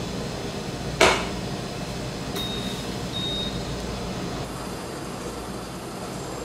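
A stainless steel pot set down on a glass induction cooktop with one sharp clank about a second in, followed by two short high beeps from the cooktop's touch controls, over a steady low hum.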